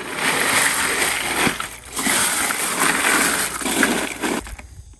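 Ice in a cooler crunching and sloshing as hands shift pieces of raw deer meat through it to chill them evenly. The rattling noise runs with a brief lull just before two seconds in and dies away about four and a half seconds in.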